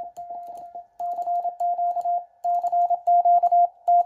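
Morse code sidetone from a QRP Labs QCX-mini CW transceiver: a single steady beep keyed on and off in dots and dashes, sent by hand from an iambic paddle. The beeps get louder and come quicker from about two and a half seconds in.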